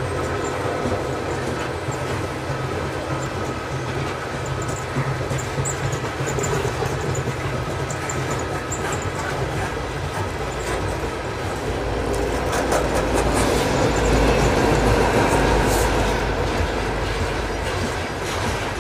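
Loaded coal hopper cars of a freight train rolling past slowly up a grade, wheels clicking over the rail joints with a faint steady wheel squeal. The low rumble swells louder about two-thirds of the way through, then eases.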